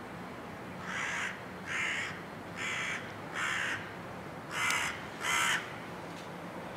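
A crow cawing six times, about one caw a second, the last two caws the loudest.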